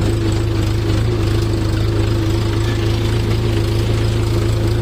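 Farm tractor's diesel engine running at a steady low drone.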